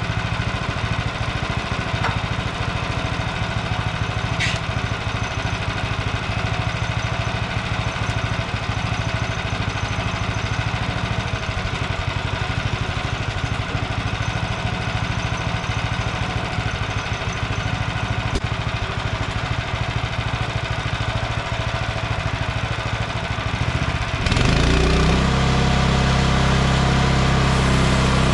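Small gas engine of a Frontier OS23 bandsaw sawmill running steadily. About 24 seconds in, it revs up sharply and holds at a higher, louder speed.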